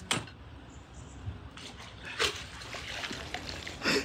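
Canal water splashing and dripping around a magnet-fishing haul as it is pulled from the water, with three short, sharp splashes about two seconds apart.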